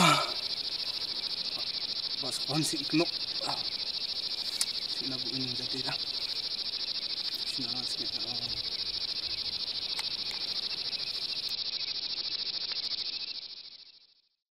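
Steady, high-pitched chorus of insects chirring without a break, with faint voices a few times in the background; it fades out near the end.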